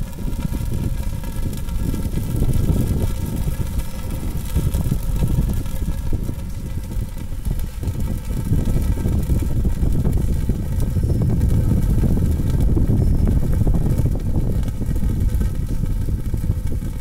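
Fire whirl spinning inside a metal drum: a steady low rumble of swirling flame, with a faint steady hum of higher tones over it.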